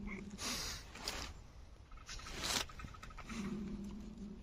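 A dog snuffling and sniffing at close range, pushing its nose at a person's face and hands. There are several short breathy sniffs and huffs, and a low drawn-out moan at the start and again near the end.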